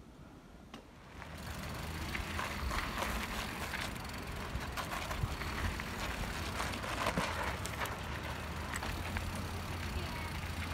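A balance bike rolling on a dry, gravelly dirt track, with a steady crunching of tyres on grit and a low rumble. It sets in about a second in, after a quiet start.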